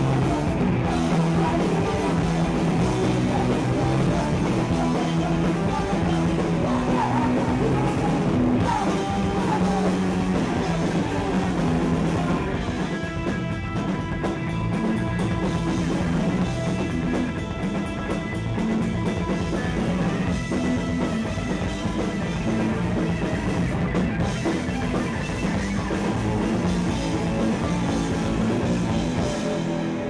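Punk rock band playing live: electric guitar, bass guitar and drum kit, with a singer's vocals over them.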